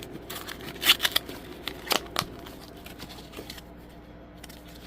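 Hands rummaging through a package's packing: rustling and crinkling with a few sharp clicks and taps, the loudest about a second in and again around two seconds in, quieter after that.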